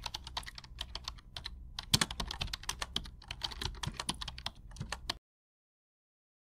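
Computer keyboard typing sound effect: a quick, uneven run of key clicks that cuts off abruptly about five seconds in.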